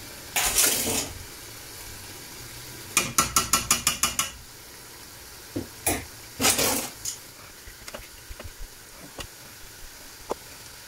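Metal kitchen tongs and utensils clattering against an aluminium pot and roasting tray while lamb shanks are moved into the curry sauce. The sound is a short scraping rustle, then a quick run of about nine metallic clicks lasting a little over a second, a few single clicks and a second rustle.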